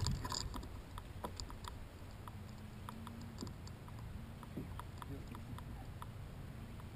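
Fishing reel clicking in short, irregular ticks while a hooked fish pulls on the bent rod.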